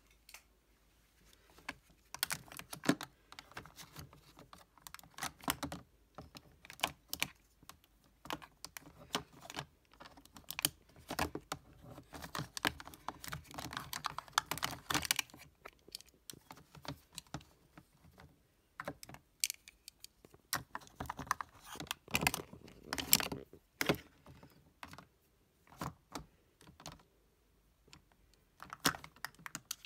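Plastic blush compacts clicking and clattering against one another and a plastic mesh basket as they are handled and stood in a row: irregular small knocks with a few short pauses.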